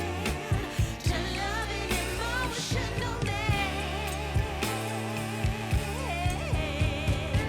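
Background pop song with a singing voice, bass and a steady drum beat.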